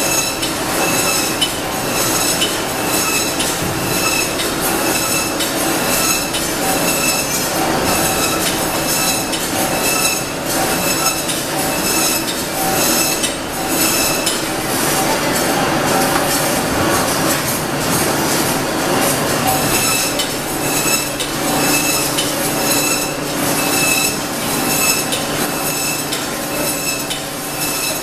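Automatic poultry cut-up line running: a steady mechanical din of conveyors and the overhead shackle line, with metallic clinks and squeals repeating throughout.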